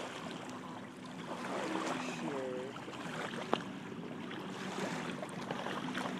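Low steady engine hum under a wash of wind and water noise, with one short sharp click about three and a half seconds in.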